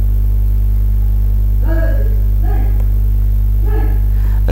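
Loud, steady electrical mains hum, a low drone with its overtones, carried in the recording.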